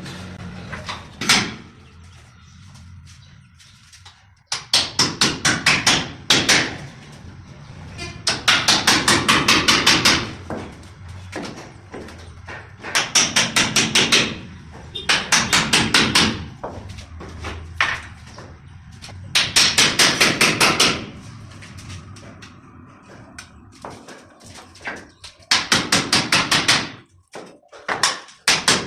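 Hammer driving nails in quick runs of sharp blows, a dozen or so bursts with short pauses between, fixing strips along marked lines for a gypsum ceiling.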